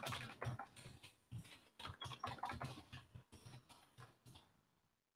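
Typing on a computer keyboard: a quick, irregular run of keystrokes that thins out near the end.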